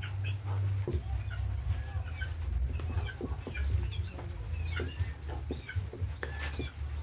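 Birds calling in short repeated chirps over a steady low hum, with soft knocks of a ladle stirring thick spaghetti sauce in a metal pot.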